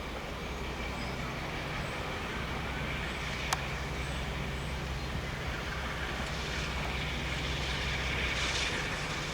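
Diesel locomotive engine idling with a steady low hum, and a single sharp click about three and a half seconds in.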